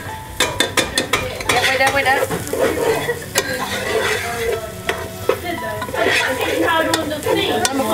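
Onions and spices frying in a pot on a gas hob, stirred with a spatula that clicks and scrapes against the pan over a steady sizzle, as ground spices are added for a curry.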